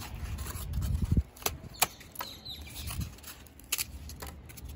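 Handling noise from pieces of styrofoam being pushed among the dry roots of an adenium root ball: short sharp clicks and ticks over a low rumble.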